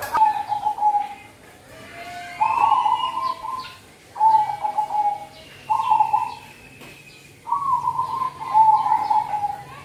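Zebra dove cooing: five rippling, trilled phrases with short pauses between them. Fainter high chirps from other small birds come in between the coos.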